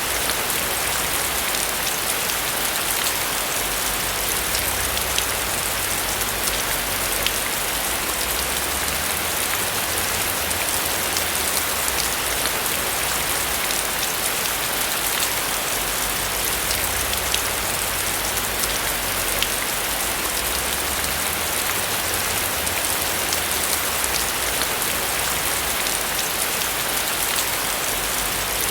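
Steady rain falling on a roof, an even hiss with scattered sharper drop taps.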